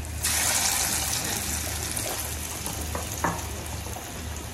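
Red-marinated chicken kebab pieces deep-frying in hot oil in an aluminium kadai: a piece is dropped in about a quarter second in and the oil breaks into loud sizzling that carries on, with two light clicks about three seconds in.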